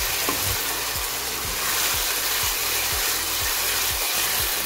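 Onion-tomato masala frying in oil in a kadhai, a steady sizzle. The masala is still at the roasting stage, not yet fully cooked.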